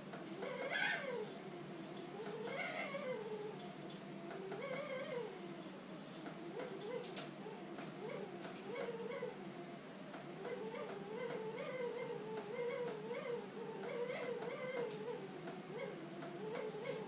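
A cat meowing: a few separate drawn-out meows that rise and fall in pitch, then a near-continuous wavering run of yowling meows through the second half.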